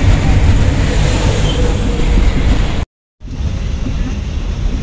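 Engine and road noise of a moving passenger vehicle, heard from inside its cabin: a steady, loud rumble. It cuts out for a moment about three seconds in and then carries on.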